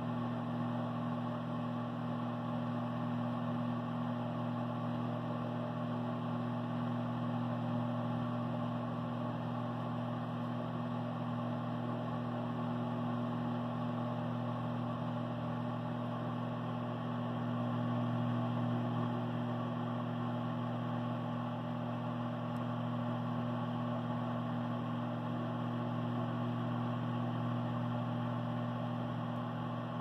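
Microwave oven running, giving a steady low electrical hum.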